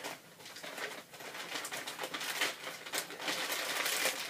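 Plastic shipping bag rustling and crinkling as it is handled and opened, in irregular short crackles that grow busier in the second half.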